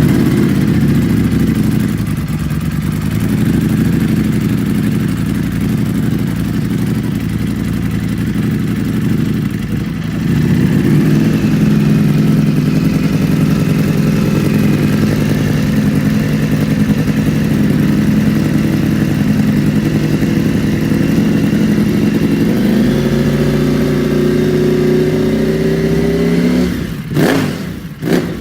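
Ducati Panigale V4's V4 engine through an aftermarket exhaust, running steadily at a constant pitch. Near the end the revs climb, then it is blipped in quick, sharp revs.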